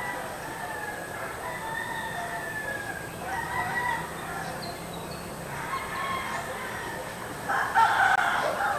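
Rooster crowing: several long, drawn-out crows in a row, the loudest about a second before the end.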